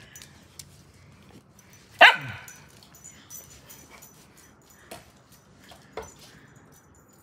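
A dog barks once, loudly, about two seconds in, the bark dropping in pitch as it ends. A few faint clicks follow later.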